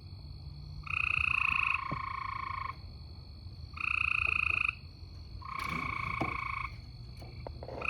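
Two animals calling in turn near a pool at night: buzzy, even-pitched trilled calls about a second long, one voice a little lower than the other, four calls in all.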